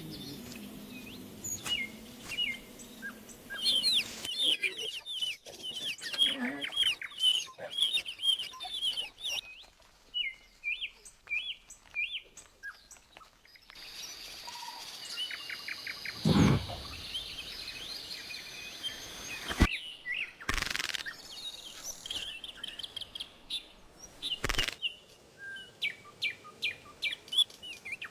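Small birds chirping, many short high chirps in quick runs, thinning out in the middle. A brief louder sound comes a little over halfway, followed by a few sharp clicks.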